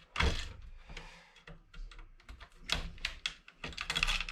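Irregular clicks and short scrapes of a hand tool working components off a computer motherboard, with a quick run of clicks in the second half.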